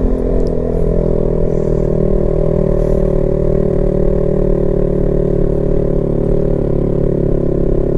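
Honda CB150X's single-cylinder engine pulling at steady revs while climbing a steep mountain road, over a low rumble.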